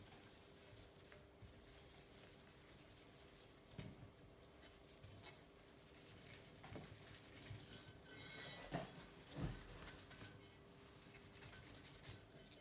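Faint rubbing of a cloth polishing the paint on a bicycle fork's legs, with a few soft knocks.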